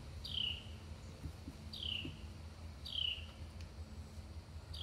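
A bird calling over and over, a short high note that slides downward, four times about a second and a half apart, over a faint low hum and a few light clicks.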